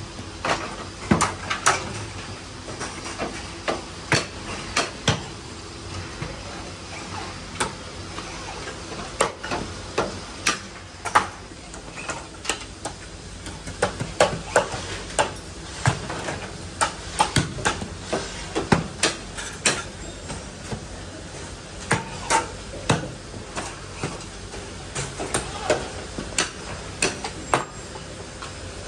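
Metal tools and parts clanking and tapping irregularly, up to a few knocks a second, over a faint steady hum.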